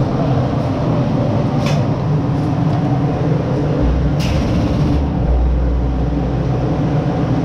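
Steady, loud droning hum of room noise, with two sharp clicks and a deep rumble in the middle.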